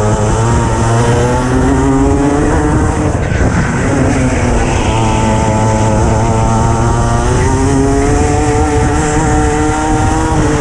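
Racing kart engine heard from onboard, rising in pitch as the kart accelerates, dropping about three seconds in as the driver lifts off for a corner, then climbing steadily again for most of the rest before falling away at the end.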